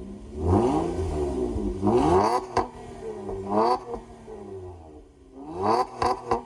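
Honda Accord V6 revved in short blips through a Borla S-Type axle-back exhaust: about four rises and falls in engine pitch, the last few quick and close together near the end, settling back to idle between them.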